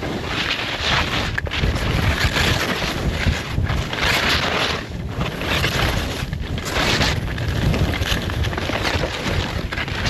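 Wind rushing over the microphone of a camera moving fast downhill on skis, with the hiss and scrape of skis cutting through soft snow. The rush swells and eases about every second or two, turn by turn.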